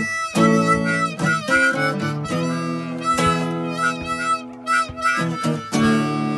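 Harmonica playing held notes and chords over a strummed acoustic guitar.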